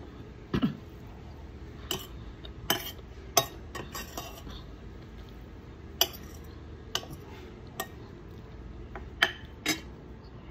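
Metal cutlery clinking and scraping against a plate while eating, about a dozen short sharp clinks at irregular intervals, over a steady low background hum.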